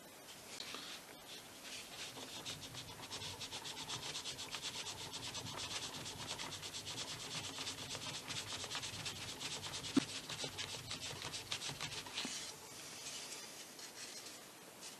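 A hinge-slotting blade rocked rapidly back and forth through balsa wood, a fast rhythmic scraping as it cuts a hinge slot. There is a sharp click about ten seconds in.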